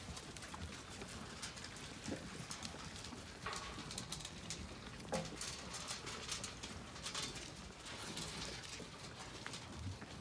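Zwartbles sheep shuffling and feeding at a metal feed trough: irregular clicks and knocks from hooves on the muddy yard and muzzles against the trough, with one sharper knock about five seconds in.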